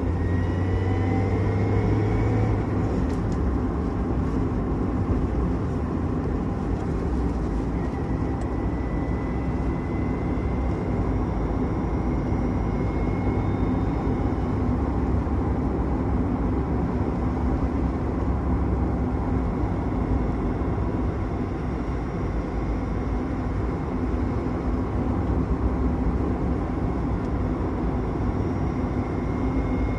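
Car driving along with steady engine and road rumble, over which a thin high whine rises in pitch as the car accelerates: at the start, from about eight to thirteen seconds in, and again near the end.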